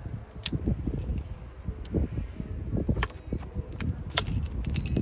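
A handful of sharp metallic clicks and clinks, about one a second, over a low rumble of handling and wind noise on the microphone: the 37mm launcher being handled and readied before firing.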